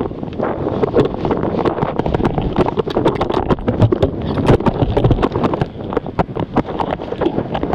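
Strong wind buffeting the microphone in a steady rumble, with many irregular knocks and crackles mixed in.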